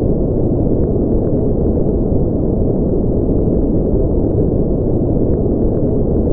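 Steady deep rumbling noise that does not change, with almost nothing above a low hiss.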